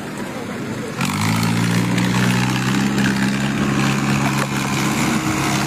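A vehicle engine comes in loudly about a second in and runs at a steady pitch, over a constant hiss.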